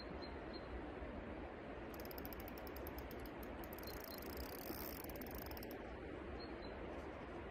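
Spinning reel on a bolognese rod ticking rapidly for about four seconds, starting about two seconds in, while a hooked fish is being played. A steady background rush runs underneath.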